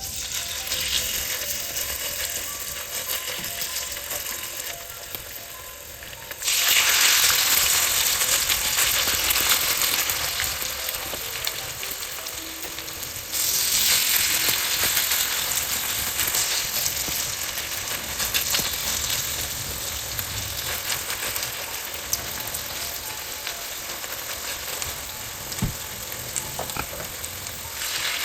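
Zucchini and corn fritters frying in olive oil in a pan, a steady sizzle. The sizzle grows suddenly louder twice, about a quarter and about halfway through, then slowly eases.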